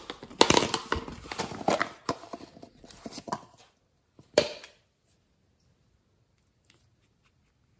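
Hard plastic container being handled, with a quick run of clattering clicks and knocks for about three seconds, then one sharp snap about four seconds in.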